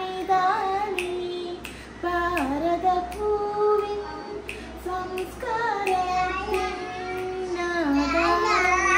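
A young woman singing alone, without accompaniment: long held, wavering notes in a melody sung to sa-ri-ga-ma syllables, with short breaks between phrases.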